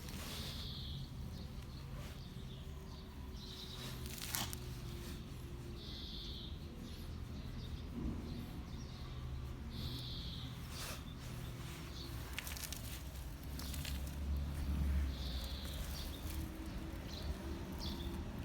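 A bird's short high chirp repeating every few seconds, over a steady low rumble of outdoor background noise.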